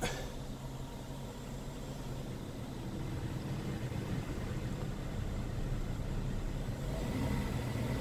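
BMW 535i's straight-six engine idling, heard from inside the cabin with the air-conditioning blower running: a steady low hum that grows slightly louder a few seconds in.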